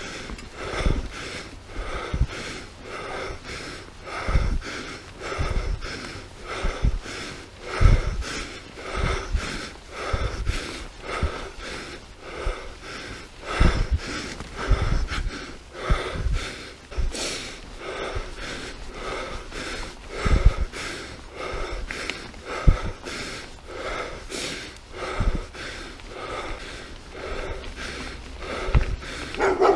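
Mountain bike being ridden over a rough dirt trail, heard from a camera on the rider: hard, rhythmic breathing about twice a second over frequent low thumps as the bike hits bumps.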